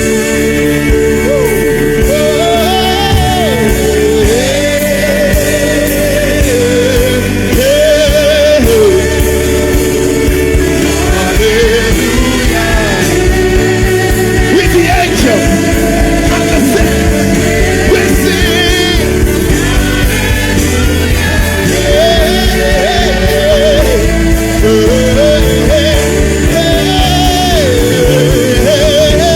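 Gospel song: a voice sings a wavering melody over sustained instrumental accompaniment with a steady beat.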